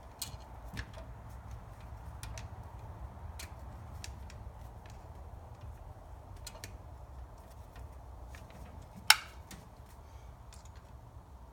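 Ratchet wrench clicking in short, irregular strokes while tightening the thermostat housing bolts, with one sharper, louder click about nine seconds in.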